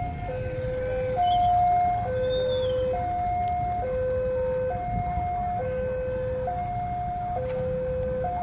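Railway level-crossing warning alarm sounding a steady electronic two-tone hi-lo pattern, each tone held a little under a second: the signal that a train is approaching. A low rumble of traffic runs underneath.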